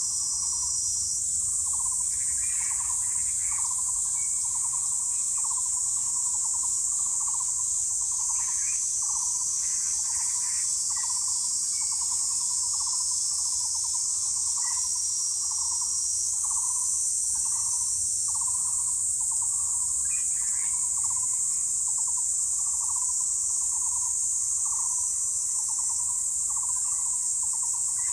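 A bird giving a long, even series of short hoots, about one and a half a second, over a loud, high, steady insect drone.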